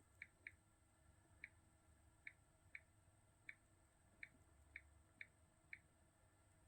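Smartphone on-screen keyboard key-press clicks, about ten short pitched ticks at an uneven typing pace, as a Wi-Fi password is entered on a Samsung Galaxy S21 Ultra.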